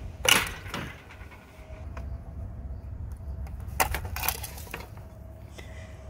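Sharp snaps and clicks from disconnecting the low-voltage thermostat wires at an air conditioner's condensing unit: one loud snap right at the start and a quick cluster of several about four seconds in, over a steady low rumble.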